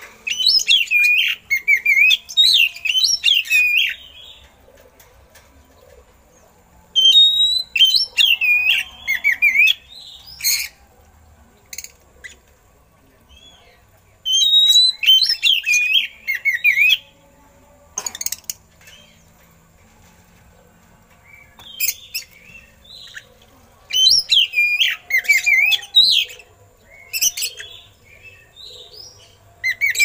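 Oriental magpie-robin (kacer) singing in loud bursts of rapid, warbling, high phrases with short pauses between, its song filled in with learned imitations of eagle calls.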